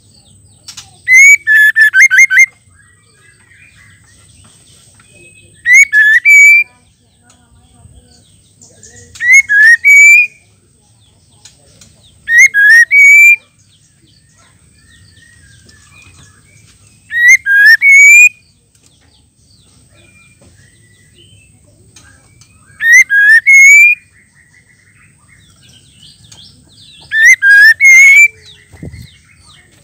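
Female white-rumped shama calling: seven short, loud phrases of quick rising whistled notes, each about a second long, repeated every few seconds.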